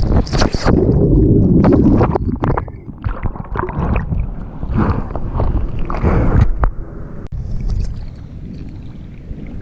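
Seawater rushing and splashing around a surfboard, with wind buffeting the microphone. A loud rush for about two seconds gives way to irregular splashes, which thin out to a quieter wash near the end.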